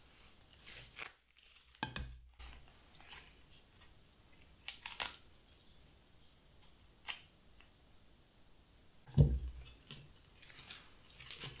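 Pruning shears snipping flower stems, several separate sharp clicks, with soft rustling of stems and paper in between. The loudest stroke, about nine seconds in, carries a heavier thump.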